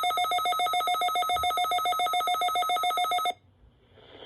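Weather alert radio's alarm sounding a loud, rapid pulsing trill, which cuts off sharply about three seconds in; faint radio hiss rises near the end as the broadcast audio comes on.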